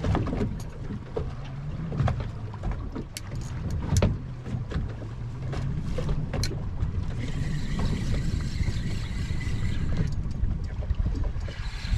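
A spinning reel whirs for about three seconds, starting about seven seconds in, and again near the end, over a steady low rumble of a boat on open water with wind on the microphone. Sharp ticks and clicks from the rod and reel come in the first few seconds.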